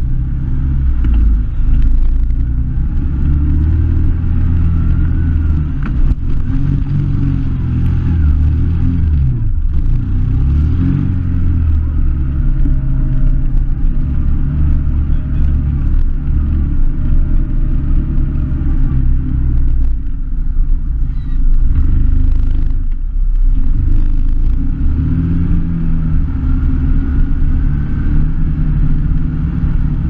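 Engine of an off-road vehicle running under load on a rough trail, the throttle rising and falling, with a heavy rumble. It briefly drops off twice, once about a third of the way in and again near three quarters.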